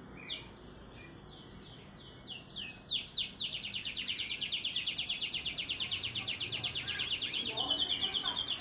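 Domestic canary singing: a few separate downward-sliding notes, then from about three seconds in a fast, tight trill of rapidly repeated notes, ending in a held high note near the end.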